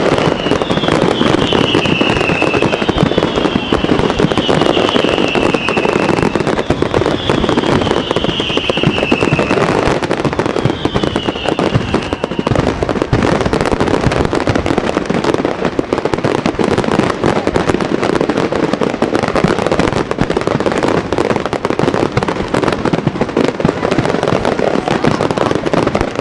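Fireworks display: continuous dense crackling and banging of bursting shells, with a series of falling whistles over roughly the first twelve seconds.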